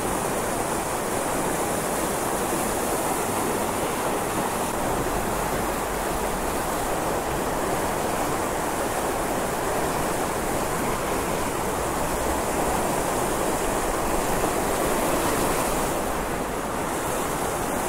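Small waterfall pouring into a pond: a steady, unbroken rush of white water.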